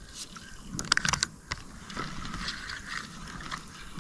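Fishing reel being cranked by hand to wind in line, its gears giving a soft whir, with a few sharp clicks about a second in.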